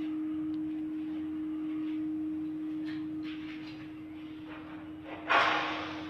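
A steady hum at one pitch, with a brief loud noise near the end.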